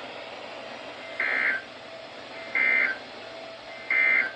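NOAA Weather Radio Emergency Alert System end-of-message data bursts: three short, shrill, warbling digital bursts about a second and a half apart, signalling the close of the weekly test broadcast. A faint steady radio hiss fills the gaps between them.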